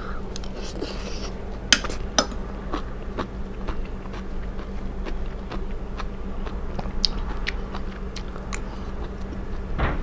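Close-miked wet chewing and mouth clicks from a person eating a spoonful of soup, with two louder sharp clicks about two seconds in.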